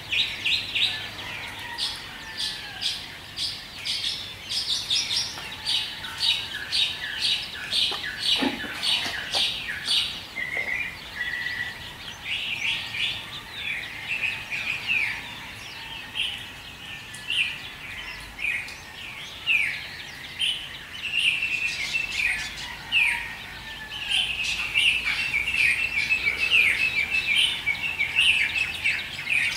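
Dawn chorus of many small birds chirping and twittering continuously, with a brief lower falling call about eight seconds in; the twittering grows denser and louder in the last few seconds.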